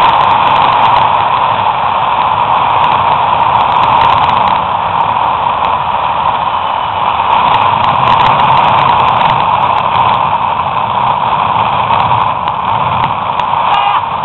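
Loud steady rushing of a zip line trolley's pulleys running along the steel cable, mixed with wind on the microphone, during a fast descent.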